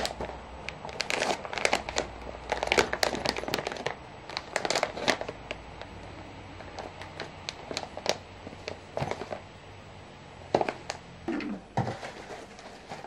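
Plastic packaging crinkling and crackling as it is handled and opened, with many sharp crackles, busiest in the first five seconds and more scattered after.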